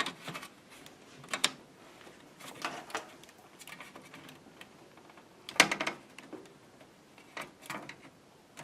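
Scattered, irregular clicks and taps of hard plastic as the opened Dell Latitude E6330 laptop is handled, the loudest about halfway through.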